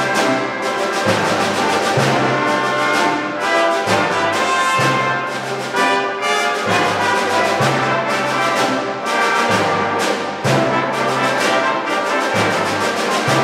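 Symphony orchestra playing, the brass section of trumpets, trombones and horns prominent over the strings, with a low bass part that recurs in regular pulses.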